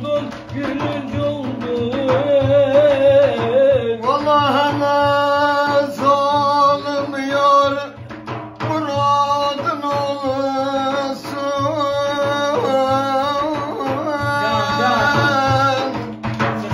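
A man singing a Middle Eastern folk song in long, wavering held notes, accompanied by a hand-beaten frame drum keeping a steady beat.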